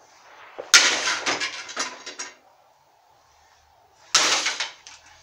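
Firecrackers going off: a loud bang about three-quarters of a second in, followed by a quick run of sharp cracks, then a second loud bang about four seconds in that dies away.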